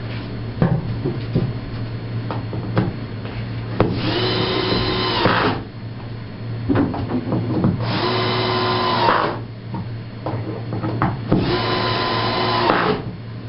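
A small electric motor runs in three separate bursts of about a second and a half, each rising briefly to a steady pitch and winding down, over a steady low hum. Light knocks and clicks sound between the bursts.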